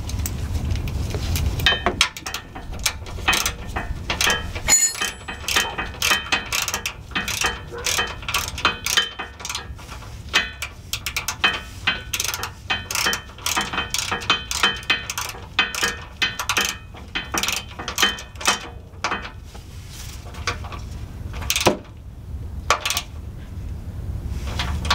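A 3/8-inch drive ratchet clicking in quick back-and-forth strokes as it snugs up the fuel filter bracket bolt. The clicking starts about two seconds in and keeps on in repeated runs.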